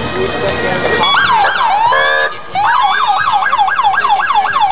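Emergency vehicle sirens switch on about a second in, a slow wail and then a fast yelp at about four sweeps a second, with more than one siren sounding at once. A short horn blast sounds about two seconds in.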